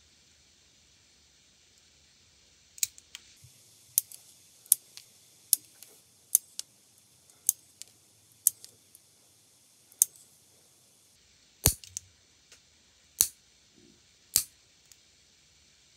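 Nail tip cutter snipping through clear plastic gel nail tips: a string of sharp clicks, roughly one a second. Near the end come three louder, fuller snips from a nail clipper trimming a tip.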